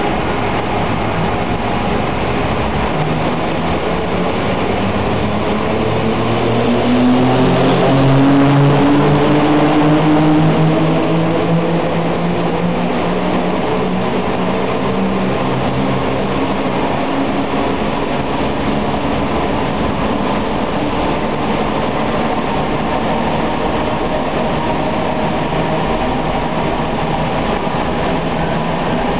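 FS E.656 electric locomotive pushing a regional train away from the platform: a whine from the locomotive rises steadily in pitch as it accelerates, loudest about seven to eleven seconds in, then it fades into a steady hum.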